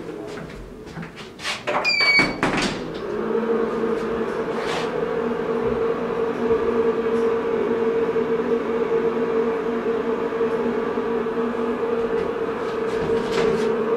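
DEVE elevator starting and travelling down: a few clicks and knocks with a short high beep about two seconds in, then the drive's steady hum as the car descends, with more clicks near the end.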